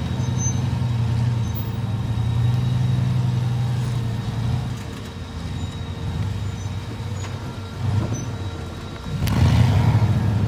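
Rock-crawler buggy's engine running under load as it crawls up a rock ledge, easing off about halfway through, then revving hard suddenly about nine seconds in.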